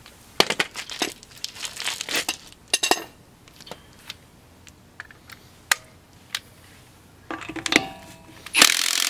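Clinks and knocks of a cordless impact wrench and its socket being handled against a lug nut. Near the end the impact wrench starts running loudly, spinning a wheel's lug nut, after a brief burst shortly before.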